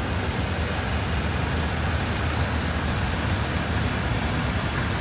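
2007 Dodge Ram 1500's 4.7 L V8 engine running steadily, with no speech over it, just after starting on a newly replaced water pump.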